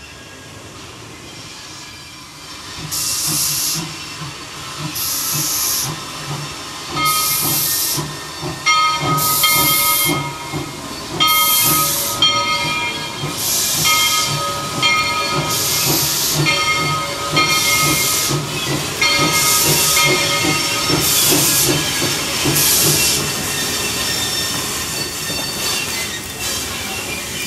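1923 Porter 0-4-0 steam locomotive working slowly forward, its exhaust chuffing as sharp hissing bursts about every two seconds, starting a few seconds in.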